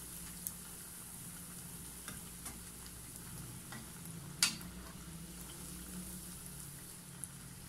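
Cheese arepitas deep-frying in hot oil, a steady sizzle, as a slotted spoon turns them in the pan. There are a few light taps of the spoon against the pan and one louder clink about four and a half seconds in.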